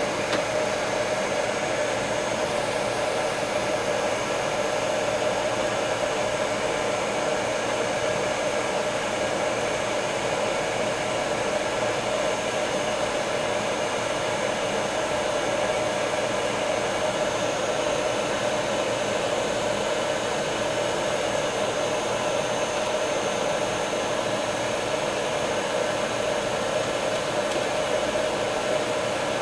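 Heat gun blowing steadily, a continuous rush of air over a motor hum with a faint high whine, warming epoxy bedding compound so that it thins and spreads.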